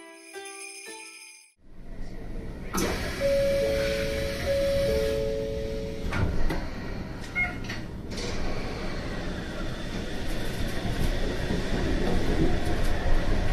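A few plucked notes of music stop, then a two-tone door chime plays, the sliding doors shut with a knock about six seconds in, and the suspended monorail car pulls away, its running noise growing steadily louder as it gathers speed.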